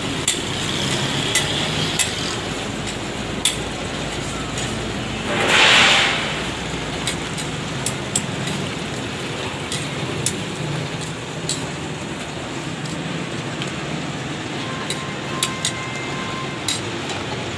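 Metal tongs clicking and scraping against a large flat griddle as parathas are turned, over a steady frying sizzle and street noise. A louder hissing rush swells and fades about five and a half seconds in.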